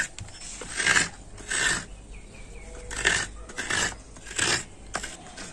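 Coconut half scraped by hand against the serrated blade of a kuruni coconut grater, shredding the white flesh: a rough scraping stroke about every half second to a second, around six strokes in all.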